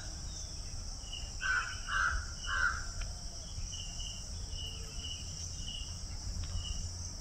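Steady high drone of crickets and other insects, with a crow cawing three times in quick succession about a second and a half in. Short faint bird chirps recur throughout.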